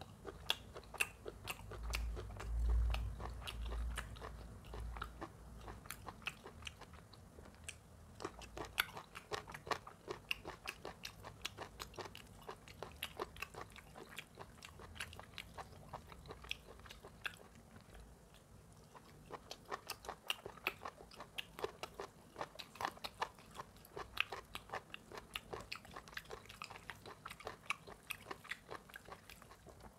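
Close-miked eating of mutton curry and rice by hand: chewing and wet mouth smacks heard as many quick, sharp clicks. There is a low rumble about two to four seconds in.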